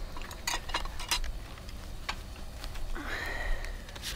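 Light clicks and taps of a spoon and tableware during a meal, scattered irregularly, with a brief faint whistle-like tone about three seconds in.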